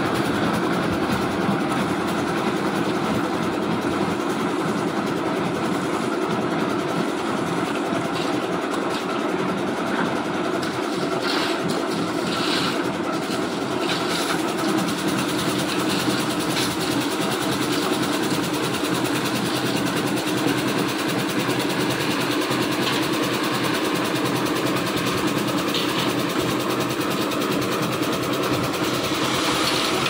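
Lift concrete mixer running steadily, its engine and turning drum making a continuous mechanical drone, with a few short clatters as pans of stone aggregate are tipped into the drum.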